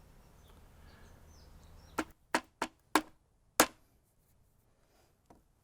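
Five sharp knocks of a rubber mallet on the wooden chair, tapping its freshly glued joints together. They start about two seconds in: four in quick succession about a third of a second apart, then one more just over half a second later.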